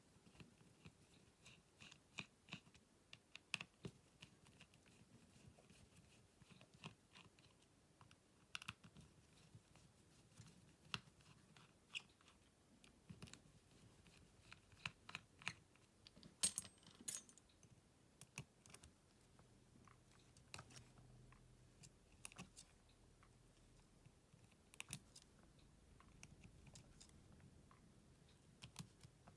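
Small, sharp clicks and taps at an uneven pace from tools and parts being handled while a Samsung Galaxy M31s smartphone is taken apart, with a louder double click a little past halfway, over a faint room background.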